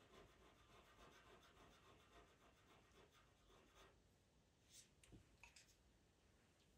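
Pastel pencil scratching softly across Pastelmat paper in short strokes, drawing fine fur hairs, with a few faint clicks about five seconds in.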